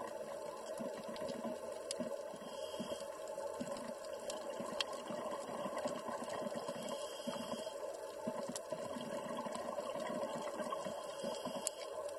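Underwater reef ambience: a steady rushing water noise, with irregular low swells and a few scattered sharp clicks.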